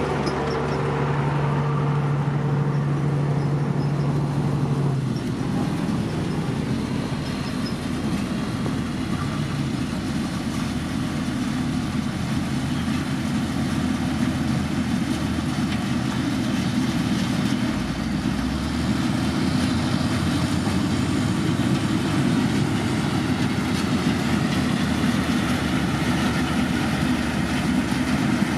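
Diesel engine of a heavy road-construction machine running steadily. A clear engine tone holds for the first five seconds or so, then gives way to a denser, even rumble.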